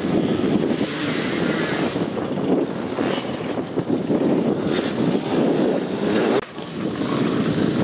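Enduro motorcycle engine revving up and down as the bike accelerates through turns, with a brief drop in the engine sound about six and a half seconds in.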